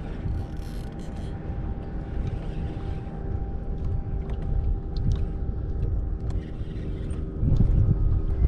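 Wind rumbling on the microphone over a steady faint hum, with a few small clicks scattered through it; the rumble grows louder near the end.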